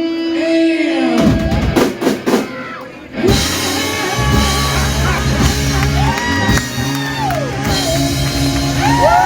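Live rock band with electric guitar and drum kit: a held guitar note, a run of drum hits, then from about three seconds in a sustained chord with guitar notes sliding up and down.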